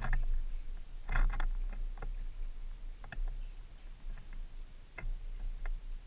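Red-bellied woodpecker pecking at a wooden bird feeder: irregular sharp taps, a quick cluster about a second in, then scattered single taps.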